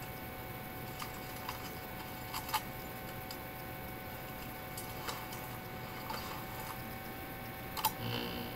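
Steady faint hiss and hum with a handful of short soft clicks scattered through it, the loudest near the end.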